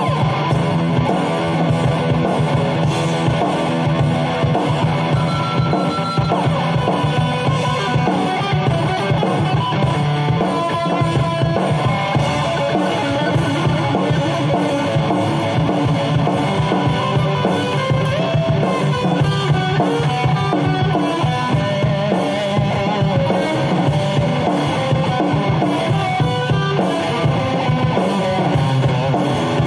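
Kramer Assault 220 FR electric guitar being played over a backing track with a drum kit; the guitar's notes shift continuously.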